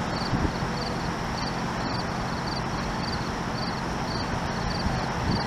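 An insect chirping in an even rhythm, about two short high chirps a second, over a steady outdoor rumble of wind and distant noise.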